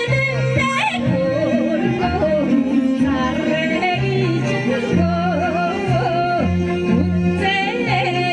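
A solo voice singing with instrumental accompaniment. The voice wavers and bends on its held notes over steady sustained bass notes.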